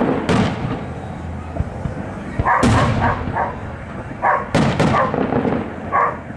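Aerial fireworks shells bursting overhead. There are several loud bangs, each trailing off in an echo, with two close together about two-thirds of the way in, and shorter sharp sounds between them.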